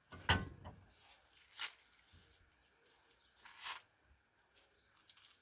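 A hand tool working at a car's front brake caliper: three short rasping scrapes of metal, the loudest just after the start and the others about a second and a half and three and a half seconds in.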